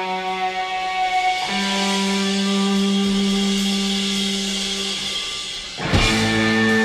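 Background rock music: long held guitar notes that change twice, then a louder, fuller section kicks in near the end.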